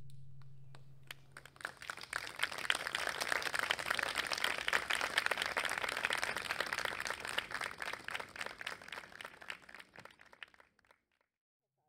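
Small audience applauding: a few scattered claps about a second in, building to steady clapping, then thinning out and stopping shortly before the end. The last sustained note of the cello and piano dies away just as the clapping begins.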